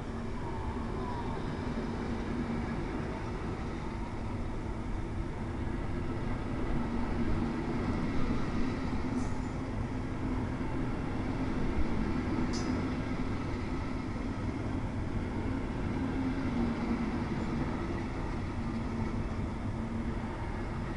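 Passenger coaches rolling slowly along the platform track: a steady rumble of wheels on rail with a low hum underneath, and two brief high squeaks at about nine and twelve seconds in.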